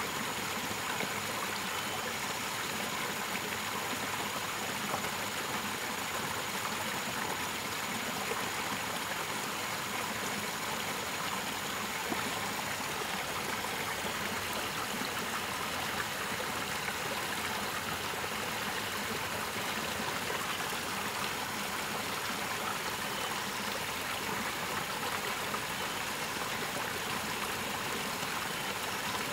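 Water from a small ditch trickling and splashing steadily over rocks into a pool, an unbroken rushing hiss.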